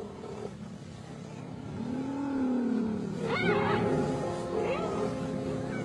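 Background music with sustained notes, and a wild animal's call a little after three seconds in: a quick high pitch glide up and back down.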